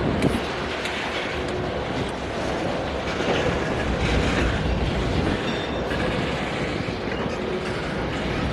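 Long freight train's cars rolling past close by: a steady rumble and clatter of steel wheels on the rails, with a few faint high squeals.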